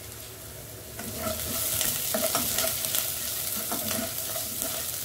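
Chopped onions and green chilli frying in hot oil in a nonstick pot while a spatula stirs and scrapes them, with scattered clicks of the spatula against the pan. The sizzle grows louder about a second in.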